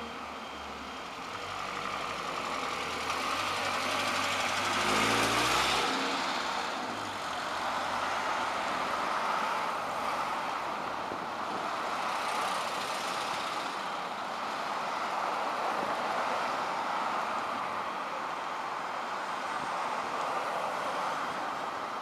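City bus engine heard from inside the bus, its note rising briefly about five seconds in, then a steady rush of engine and traffic noise.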